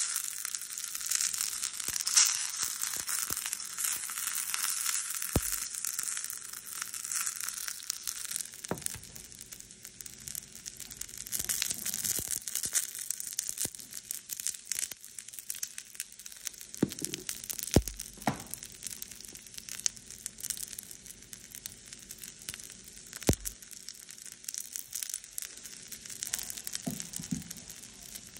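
Curry leaves, dried red chillies and dals frying in hot oil in a small pan: a dense crackling and spitting, heaviest in the first few seconds and again about twelve seconds in. Three dull knocks come through it.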